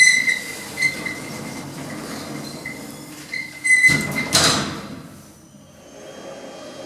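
Thyssen hydraulic lift's door signal sounding a high beep, then several short beeps at the same pitch spaced unevenly over a few seconds. About four seconds in, the lift's sliding doors move with a short loud whoosh, and afterwards a low steady hum remains.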